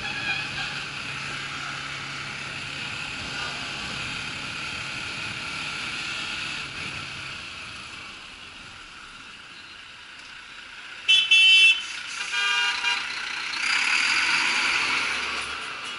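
Steady wind and road noise from a moving motorcycle in town traffic. About two-thirds of the way through, a vehicle horn toots loudly and briefly, then toots again more faintly a second later. Near the end there is a louder rush of noise as the bike comes alongside a truck.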